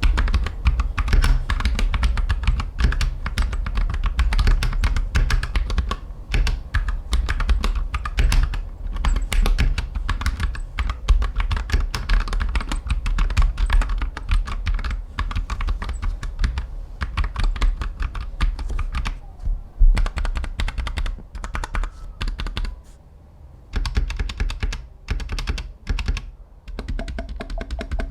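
Fast, continuous typing on a Royal Kludge RK84 mechanical keyboard fitted with aftermarket keycaps, with a steady clatter of key clicks. The typing briefly pauses near the end, then goes on as sparser keystrokes. Background music plays underneath.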